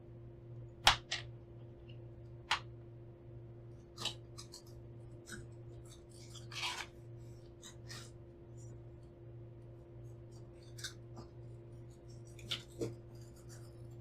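Packaging of a mini quadcopter being opened and handled by hand: scattered sharp clicks and snaps with a brief rustle partway through, over a steady low hum.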